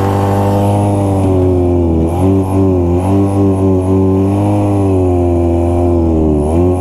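Two-stroke engine of a vintage 1970s Arctic Cat snowmobile running steadily at speed under the rider. Its note holds with brief dips and recoveries in pitch a few times.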